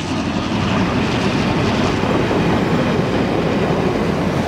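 A diesel-hauled track and overhead-wire inspection train passing close by, with the locomotive's engine running and the wheels rolling over the rails in a steady, loud rumble.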